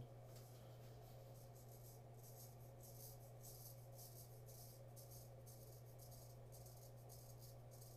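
Custom 7/8-inch straight razor scraping lathered stubble off the scalp in repeated short strokes: a faint, crisp scratching, over a steady low hum.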